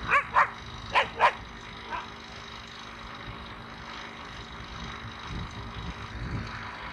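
A dog barking: two quick pairs of barks in the first second and a half, then one fainter bark about two seconds in.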